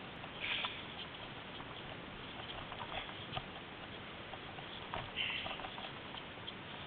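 Footsteps crunching in snow, with scattered small scuffs and clicks and two louder crunches, about half a second and five seconds in.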